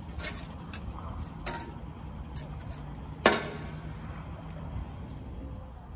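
Thin titanium wood-stove parts being handled: light metallic clicks and rattles, then one sharp, ringing metal clank a little over three seconds in as the pipe collar is set into the stove top.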